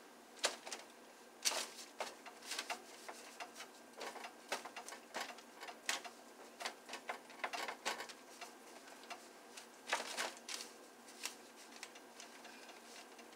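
Irregular clicks and crackles in clusters, thinning out near the end, from beignet dough frying in a shallow pan of oil and from sticky dough being handled on a floured, paper-covered board.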